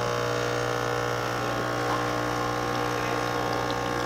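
Saeco Odea espresso machine's pump running with a steady hum, pushing water through the coffee to brew a shot of espresso after the pre-brew stage.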